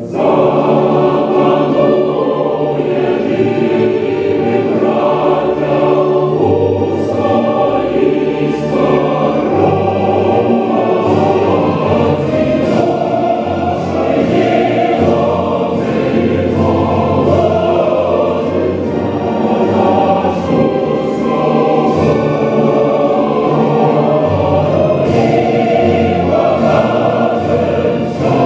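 A choir singing with musical accompaniment.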